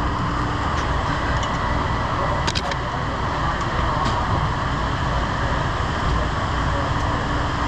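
Steady mechanical running noise with no change in level, and a few faint clicks about two and a half seconds in.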